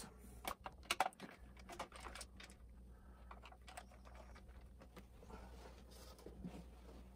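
Faint scattered clicks and scrapes of a screwdriver turning out small screws from the plastic motor cover of an RC toy truck, over a low steady hum.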